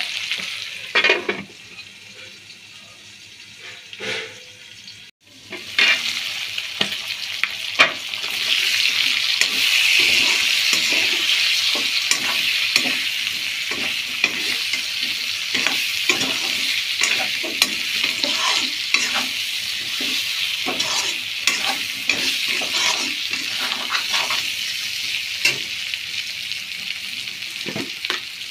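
Pork pieces frying in a metal wok: a steady sizzle, with a metal spoon scraping and knocking against the pan as the meat is stirred. The sizzle is fainter for the first several seconds and grows louder about eight seconds in.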